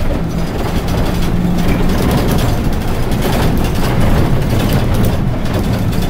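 Inside a moving electric bus: a steady rumble of road and tyre noise with rattling from the cabin. A faint steady hum sits under it for about the first two seconds.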